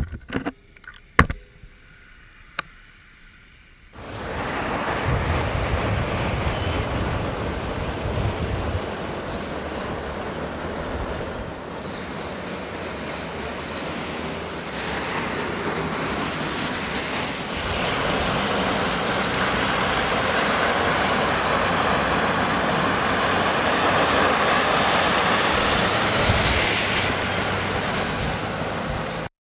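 Floodwater rushing and gushing in a loud, steady noise, with wind on the microphone. It begins suddenly about four seconds in, after a few sharp clicks, and cuts off just before the end.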